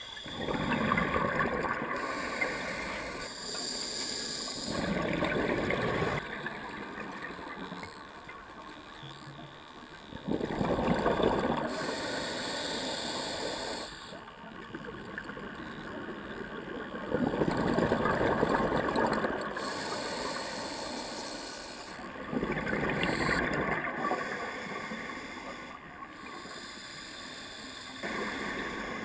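Scuba diver's regulator breathing, heard through the camera housing: a gush of exhaled bubbles every five to six seconds, each lasting one to two seconds, with a quieter hiss between breaths.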